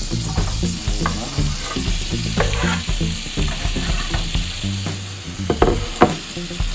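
Diced tomatoes and red onions sizzling in melted butter in a frying pan. Scattered sharp knocks and scrapes of the cutting board and a knife blade against the pan, louder near the end.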